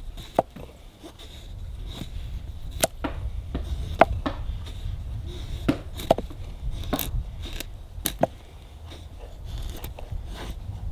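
A knife carving a wooden stick, each stroke shaving off a curl of wood with a short, sharp scrape. There are about a dozen strokes at uneven intervals.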